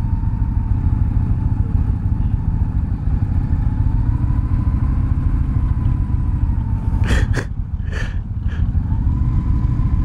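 V-twin cruiser motorcycles, an Indian Springfield Dark Horse and a Victory Hammer 8-Ball, idling at a stop with a steady deep rumble. Three or four sharp clicks come about seven to eight and a half seconds in.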